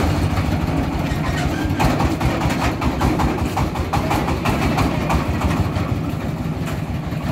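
Công nông farm truck's single-cylinder diesel engine running with a rapid low beat as the truck drives off, growing slowly fainter.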